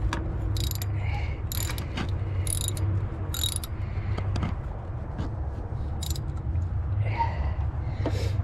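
Ratchet wrench clicking in short strokes, about one burst a second, as the thermostat housing bolts on the truck engine are run down, over a steady low hum.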